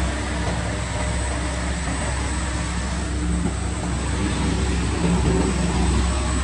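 Wide belt sanding machine for sheet metal running steadily as a metal sheet feeds through on its conveyor: a constant low hum under an even rushing noise.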